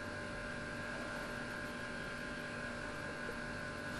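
Quiet room tone: a steady hiss with a faint, steady electrical hum.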